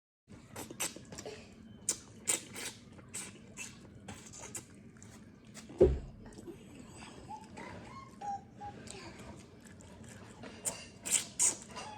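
Close-miked eating sounds of eba with vegetable soup: wet chewing and lip-smacking clicks at an uneven pace, with one louder knock about six seconds in.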